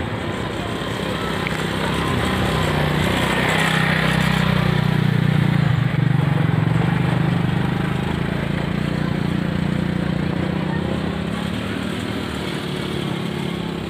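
A small engine, likely a motorcycle, running close by, growing louder to about halfway and then fading as it passes.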